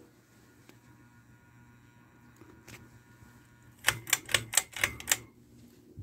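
1997 Harbor Breeze Cheshire 52-inch ceiling fan running with a steady low motor hum. About four seconds in, a quick run of about seven sharp clicks cuts in over it.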